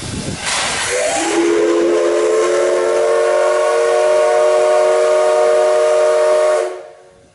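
Whistle of the C11 325 tank steam locomotive blowing one long blast, its departure signal. A burst of steam hiss comes first, then the whistle sounds, sliding up in pitch as it opens, holds steady for about five seconds and cuts off suddenly.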